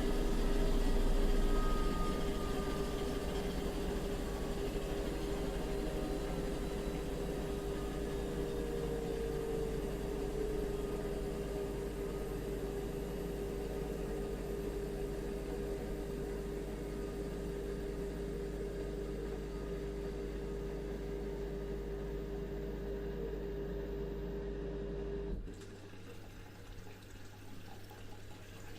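Bosch washing machine spinning: a steady motor whine over a low hum, with some tones easing slightly downward. About 25 seconds in the motor cuts off abruptly, leaving a quieter sound of water.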